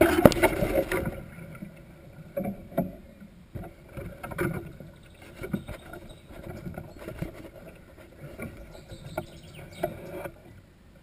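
Camera handling noise: a loud rustling bump as the camera is swung about, then irregular knocks and rustles close to the microphone as a person moves beside it.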